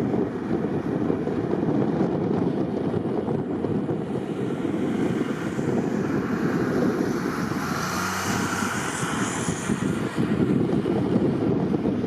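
Steady rumble of freeway traffic and snowplows, with wind noise on the microphone; a vehicle passes about eight seconds in, swelling and fading.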